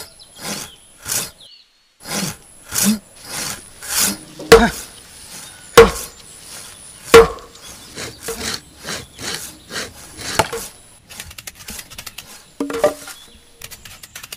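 Hand saw cutting wood in rasping back-and-forth strokes, about two a second, with a short break about a second and a half in. Three loud, sharp wooden knocks come in the middle, and near the end the strokes give way to a quicker run of light clicks.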